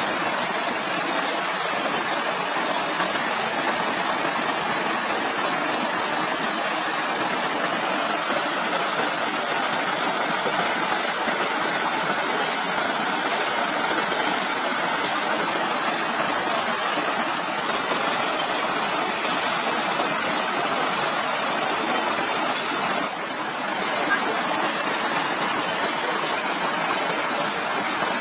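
Steady rushing of running water, even throughout, with a faint high thin tone joining about two-thirds of the way through.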